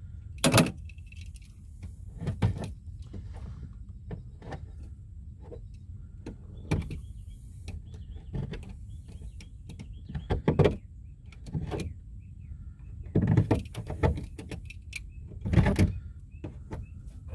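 Irregular knocks, bumps and rubbing against a hollow plastic IBC tote as it is handled, over a steady low rumble. The loudest knocks come at the start, about ten seconds in and near the end.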